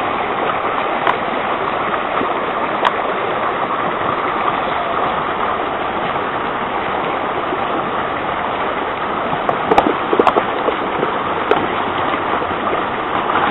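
Shallow creek water running steadily over rocks, close by. A few sharp knocks break through it, a cluster of them about two-thirds of the way through, as a shovel digs into the gravel and rocks of the creek bed.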